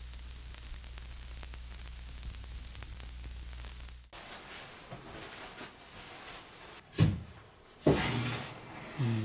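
A steady low hum that cuts off after about four seconds. Then a wooden chair and table are knocked as a person sits down at a dining table: two loud thuds about a second apart, the second with a short scrape, and a smaller knock near the end.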